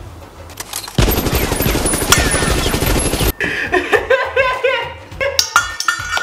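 A burst of rapid machine-gun-fire sound effect lasting about two seconds, starting about a second in, followed by laughter.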